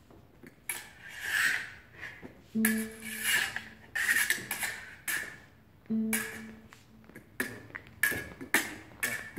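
Steel fencing blades clicking and scraping against each other in a run of quick parries and hits, with a few longer sliding scrapes and a quick cluster of clicks near the end.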